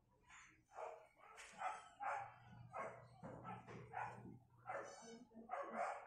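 A dog barking repeatedly, about eight short barks, over a steady low hum.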